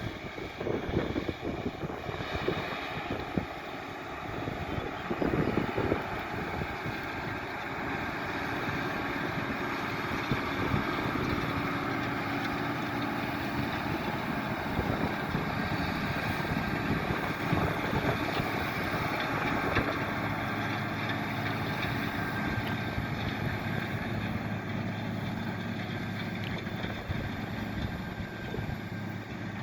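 Tractor engine running under load as it pulls a plough through a field. Wind buffets the microphone, mostly in the first few seconds.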